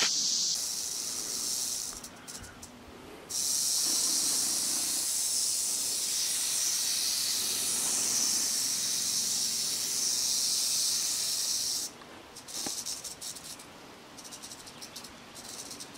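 Timber rattlesnake rattling its tail in defensive warning: a steady, high buzz that breaks off briefly about two seconds in, resumes, and stops abruptly about twelve seconds in, with a few short, broken rattles after.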